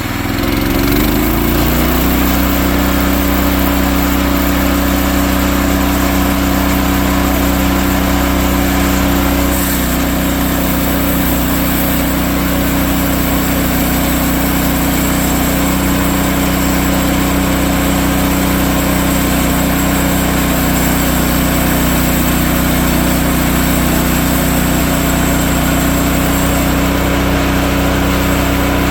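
Portable bandsaw sawmill's gas engine revving up over the first couple of seconds, then running steadily at high speed as the band blade cuts through a log.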